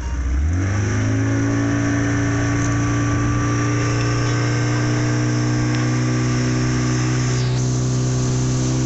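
Speed boat's engine throttling up from idle about half a second in, then running steadily at the higher speed.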